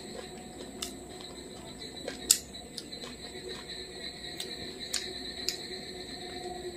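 Fingers mixing rice and fried fish on a plate, with a few sharp clicks and taps against the plate, the loudest about two seconds in. A steady high-pitched whine runs underneath.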